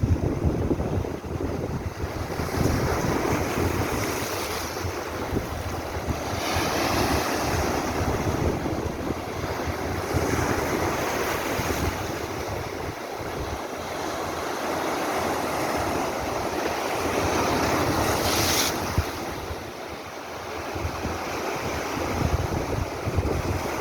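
Caspian Sea surf breaking and washing up the shore in repeated swells, with wind buffeting the microphone. A sharper hiss of a breaking wave about three quarters of the way through.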